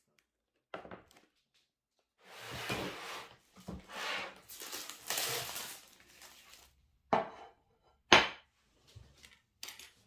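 Clear plastic bag crinkling and rustling for about four seconds as a wooden cutting board is pulled out of it, followed by a few short sharp knocks on the wooden table.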